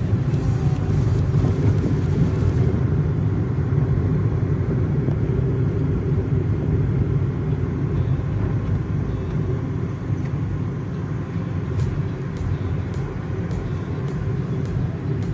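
Steady low engine and road rumble inside the cabin of a Ford hatchback driving along, with a run of faint ticks near the end.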